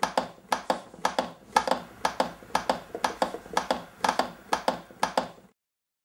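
CPR training manikin clicking under chest compressions: a quick double click on each press and release, about two compressions a second. The clicking cuts off near the end.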